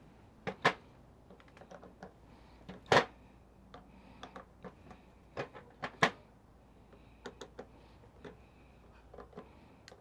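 Screws being driven by hand into a rebuilt viscous fan clutch hub: an irregular run of light metal clicks and taps from the screwdriver and screws, with three sharper knocks about a second, three seconds and six seconds in.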